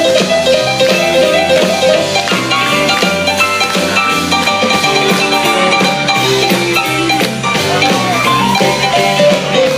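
Live band playing 1950s-style rock and roll: quick runs of melody notes over a steady drum beat, with no singing heard.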